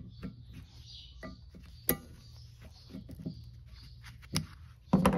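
Snap-ring pliers working a retaining circlip into the ball-joint bore of a steel suspension A-arm: small metallic clicks and scrapes, with a sharp click about two seconds in and another past four seconds, and a louder short clatter near the end. A steady low hum runs underneath.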